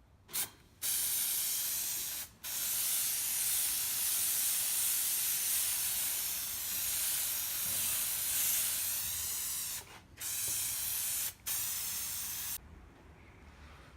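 Aerosol can of 3M headliner fabric adhesive spraying. A brief puff comes first, then long hissing sprays of several seconds each with short breaks between them, stopping about a second before the end.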